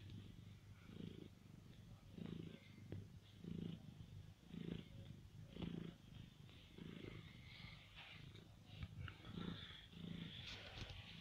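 Domestic cat purring while kneading and suckling a fleece blanket, the purr swelling and fading about once a second with each breath.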